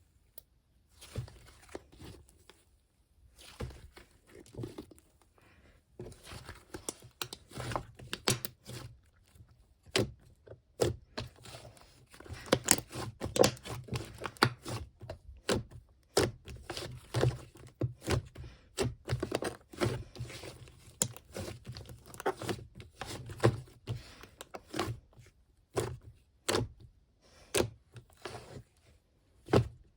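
Slime being squeezed, pressed and stretched by hand, giving irregular crackling clicks and squishy pops.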